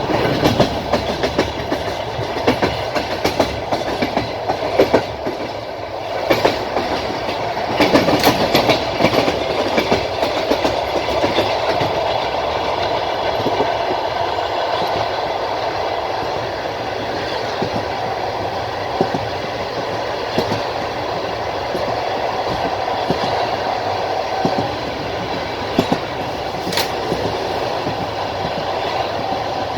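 Passenger train coach running along the track, heard from the window: wheels clacking over rail joints over a steady rolling rumble. The clacks come in clusters during the first half, the run then goes smoother, and a single sharp click sounds near the end.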